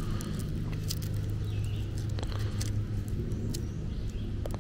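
Faint scattered clicks and rubbing as fingers work a strap through a slit in a multimeter's rubber back, over a steady low hum.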